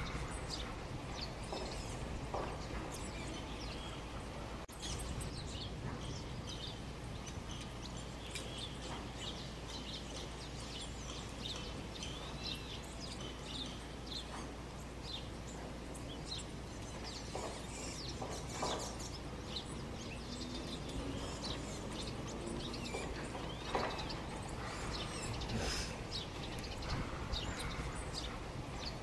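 Many small birds chirping and calling in short, scattered notes over a steady background of outdoor noise.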